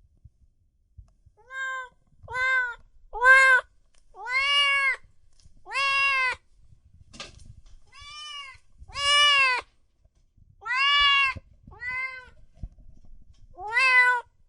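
A domestic cat meowing repeatedly, about ten separate meows each under a second long, each rising and then falling in pitch.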